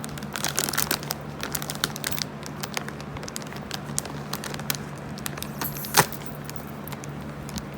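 Crinkling and crackling of a cough-drop wrapper being handled, in quick small clicks that are busiest in the first couple of seconds, with one sharp louder click about six seconds in.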